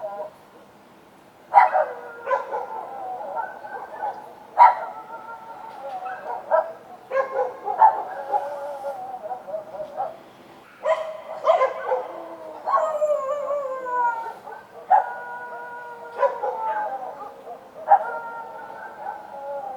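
Several street dogs barking and howling, sharp barks followed by long drawn-out howls that overlap and slide down in pitch, after a brief lull near the start.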